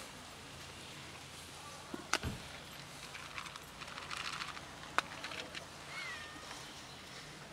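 Dry cat food rattling in a plastic container as it is shaken and held out, with a sharp click about two seconds in and another about five seconds in.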